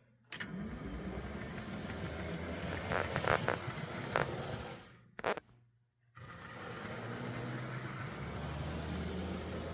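HO-scale Athearn SW-1500 model locomotive running on track: a steady motor-and-gear whir and hum from its freshly lubricated worm drive, with a few light clicks. It stops for about a second a little past halfway, then runs again.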